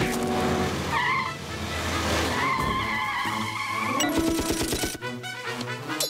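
Cartoon sound effects of a speeding motor cart with tires squealing in long skids, over background music, giving way to a rattling clatter near the end.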